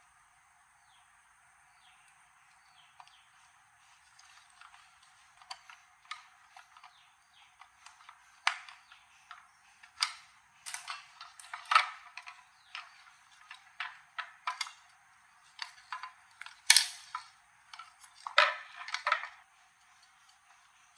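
Hand work on metal toaster parts: irregular clicks and knocks, sparse at first, then louder and more frequent from about eight seconds in, with a quick cluster of strikes near the end.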